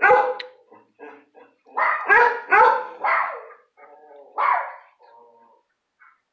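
A dog barking: one bark at the start, a quick run of four barks about two seconds in, and one more about four and a half seconds in, with fainter sounds between.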